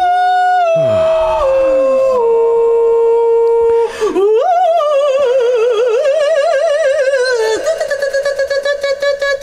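A woman's high, wordless voice singing long held notes. The pitch steps down after about a second and a half, breaks off briefly about four seconds in, then wobbles in a wide, slow vibrato. Near the end it settles into a held note that pulses rapidly.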